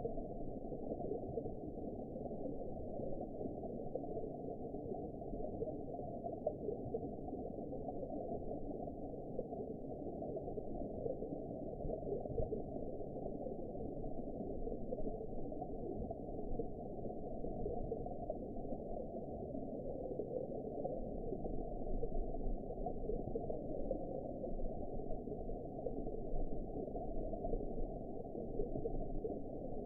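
Underwater ambience: a steady, muffled rumble and gurgle of water with nothing in the high range, swelling slightly and deepening about two-thirds of the way through.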